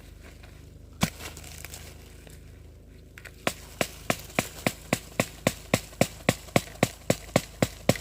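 A single sharp knock about a second in, then from about three and a half seconds a rapid, even series of sharp knocks, about three or four a second.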